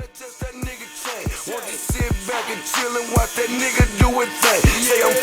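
Background hip hop music: a beat of deep drum hits that drop in pitch, with a melody over it, growing louder and busier.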